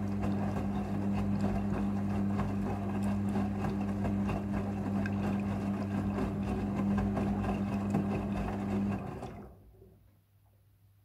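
Front-loading washing machine running in its rinse cycle: a steady motor hum under sloshing, churning noise. It stops about nine seconds in, leaving only a faint hum.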